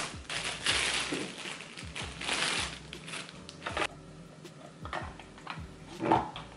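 Plastic bag of sliced sandwich bread rustling in a few crinkly bursts, then light clicks and knocks of a table knife against a plastic margarine tub, the loudest knock a little after six seconds in.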